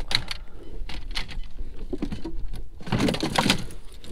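Fishing rods and reels clicking and rattling against each other as a hand sorts through a boat's rod locker. A string of light knocks, with a busier clatter about three seconds in.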